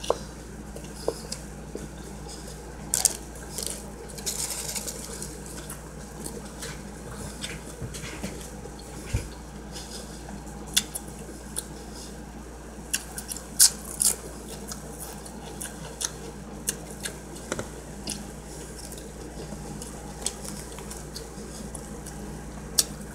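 A person eating a turkey hoagie close to the microphone: chewing, with many short, sharp, irregular clicks over a steady low hum.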